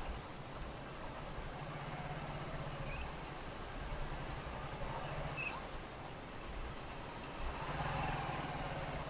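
Motorcycle engine running at low revs as the bike rolls slowly over a dirt track, its low hum swelling and easing several times with the throttle.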